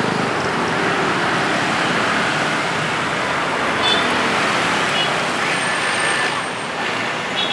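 Busy road traffic passing: vans, cars and motorcycles, with a Scania double-decker coach driving by. A few short high beeps sound about four, five and seven seconds in.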